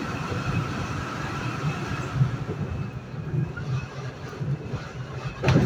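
Metro-North commuter train running at speed, heard from on board: a steady rumble of wheels on rail with a faint steady whine, and a sharp clunk near the end.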